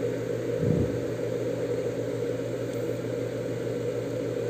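Steady low mechanical hum, with a brief low knock under a second in.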